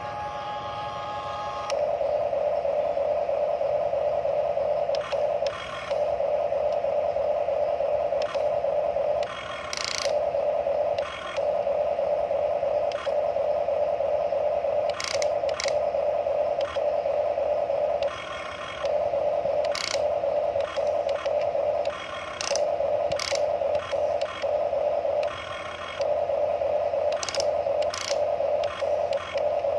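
Huina radio-controlled toy excavator's electric motors and gearboxes whining steadily as the boom swings and the arm and bucket move. The whine stops and restarts many times with short gaps, with sharp gear clicks at many of the changes.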